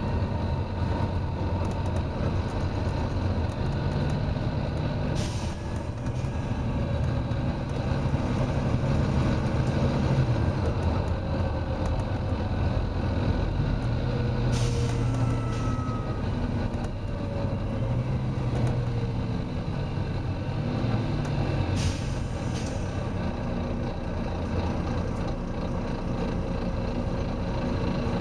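Volvo B9TL double-decker bus heard from on board: its six-cylinder diesel engine running hard under load, its pitch rising and falling as it pulls through the gears. Short hisses from the bus's air system break in about 5, 15 and 22 seconds in.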